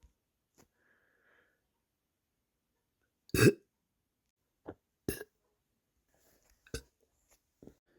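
A person burping from a bloated, overfull stomach, the burps relieving nausea. One loud, drawn-out burp comes about three and a half seconds in, followed by several shorter, quieter ones.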